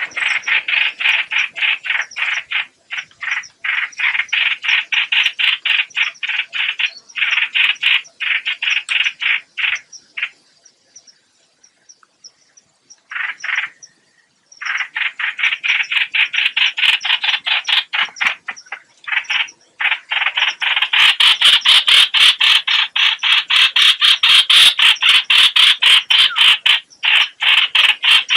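Recorded lure call of the hoạch hoạch bird: long runs of rapid, harsh rattling notes, several a second, broken by brief pauses and one silent gap of a few seconds about halfway through.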